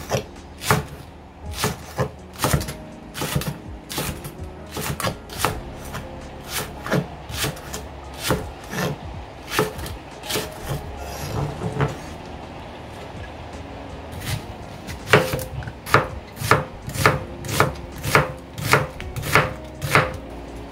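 Chef's knife slicing green onions into thin strips on a cutting board, each stroke ending in a sharp knock on the board, about two a second. It breaks off briefly around the middle, then resumes at a quicker pace with slices through an onion near the end.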